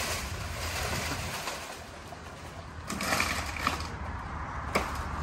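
A foot kicking the trunk of a dead jackfruit tree to topple it: a rustling, scraping stretch a few seconds in, then one sharp knock near the end.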